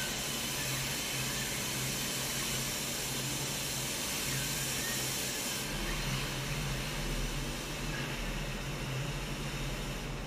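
Steady hissing of robotic paint spraying and booth air in a car-body paint shop, over a low hum, with a few faint short squeaks. About six seconds in, the hiss turns duller and a low rumble comes up.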